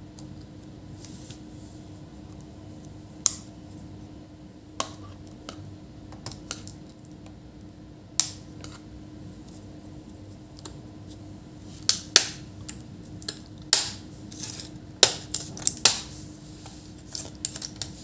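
Small sharp plastic clicks and snaps of a pry tool working the ribbon-cable connector latches and case clips of an HP ProBook laptop. A few single clicks come in the first half, then a quicker run of clicks in the second half. A faint steady hum runs underneath.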